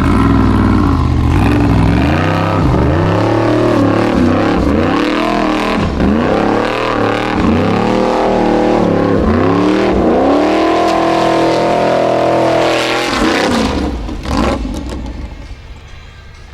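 Formula Offroad buggy's engine revving hard in repeated bursts, pitch climbing and falling several times, then easing off about thirteen seconds in, with a single knock shortly after.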